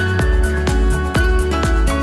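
Background music: an electronic track with a steady beat of about four strokes a second over heavy bass.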